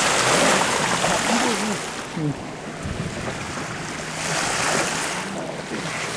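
Sea water rushing past the hull of a sailing boat under way, swelling twice as waves go by, with wind buffeting the microphone.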